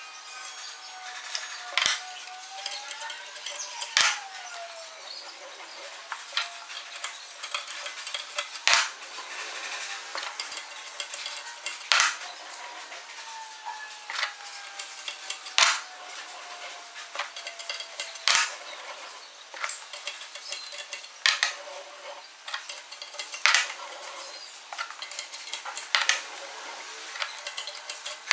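A flat metal bar being rolled through a hand-cranked homemade three-roller bender: a steady metallic scraping and creaking as the rollers turn, with sharp metallic clanks every two to three seconds and a faint squeal that slides up and down in pitch.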